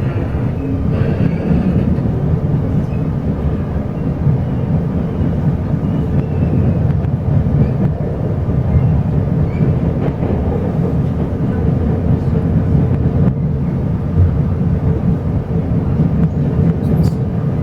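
Steady low rumble of a Chu-Kuang Express passenger coach running along the track, heard from inside the carriage.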